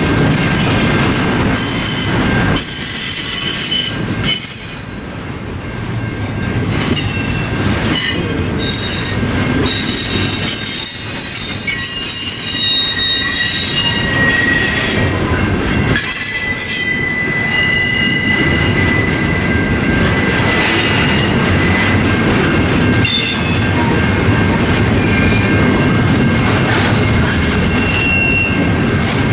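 Double-stack intermodal freight cars of a CSX train rolling past at a level crossing, wheels squealing on and off in high, shifting tones over the steady rumble of the cars.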